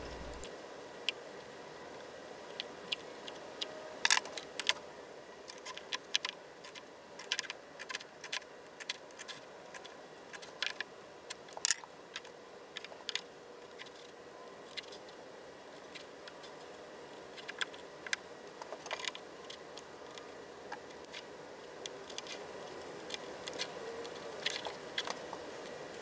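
Scattered light clicks and taps of hand marking tools (dividers, a sliding bevel and a pen) being handled and set against a wooden board while dovetail tails are laid out, over a faint steady hum.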